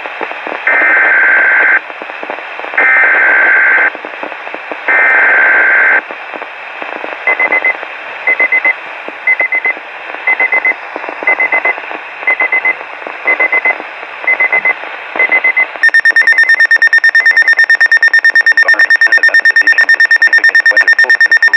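Weather radio alert: three one-second bursts of warbling SAME digital header data, then a run of short high electronic beeps about one a second. About 16 seconds in, a loud, rapidly pulsing alarm tone starts and continues, all over radio hiss. The alert signals a new severe weather bulletin, a frost warning.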